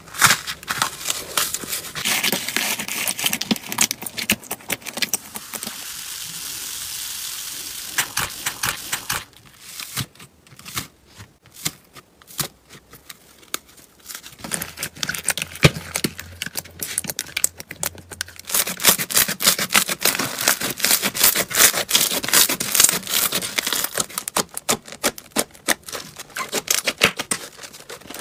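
Slime being squeezed and poked by hand, giving dense crackling and clicking pops. The pops thin out in the middle and are joined there by a smooth hiss for a few seconds.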